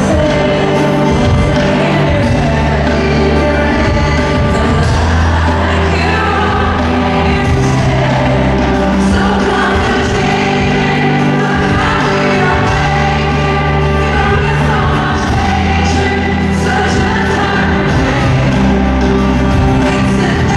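Live concert music amplified over a stadium PA: a woman singing into a microphone over the band, steady and loud throughout.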